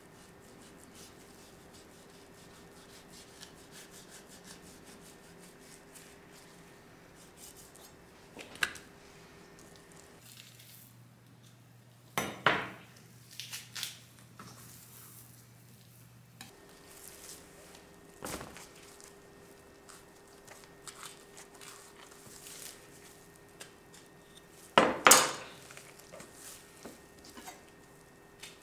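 Metal utensils and dishes clanking at a teppanyaki griddle: a handful of separate sharp clanks, the loudest about 25 seconds in, over a faint steady hum.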